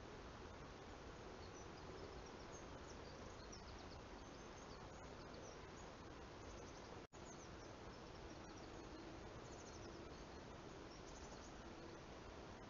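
Near silence: the steady hiss of a trail camera's microphone, with faint clusters of short high-pitched chirps in the background and a brief dropout about seven seconds in where two recordings are joined.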